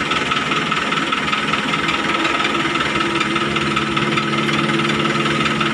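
CAT mini excavator's diesel engine running steadily while it digs and swings sand, a constant engine drone.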